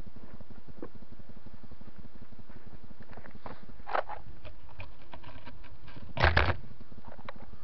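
Scattered clicks and rustles, then a short cluster of knocks about six seconds in, picked up by the quadcopter's onboard camera as it rests on the ground with its motors stopped and is jostled.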